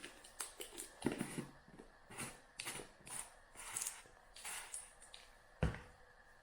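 A run of irregular small clicks, rustles and light scrapes of things being handled, with one sharper thump about five and a half seconds in.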